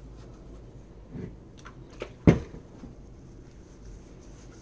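Quiet workbench handling of caliper parts: a few faint clicks and one sharp knock about two seconds in, as a small hard object is set down or bumped.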